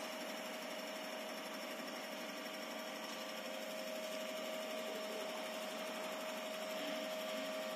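Steady mechanical hum with a constant mid-pitched tone over an even hiss, unchanging throughout: machinery running in a small room.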